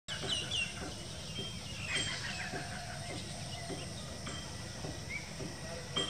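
Rural outdoor ambience: scattered bird chirps, several in quick succession at the start and again about two seconds in, over a steady low background noise.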